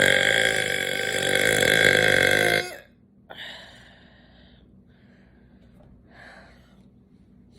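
A person's long, loud, drawn-out burp, held at a steady pitch for about four seconds until it cuts off about two and a half seconds in, followed by a few faint short sounds.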